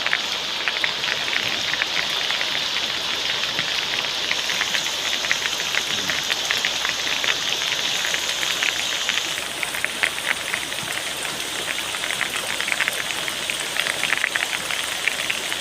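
Steady rain falling, many small drops pattering on the pool water and surrounding surfaces. A little over halfway through the highest part of the hiss drops away, leaving a duller patter.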